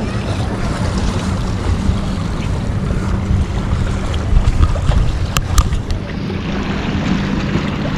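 Wind buffeting the microphone over a steady low hum, with a few sharp clicks about five and a half seconds in.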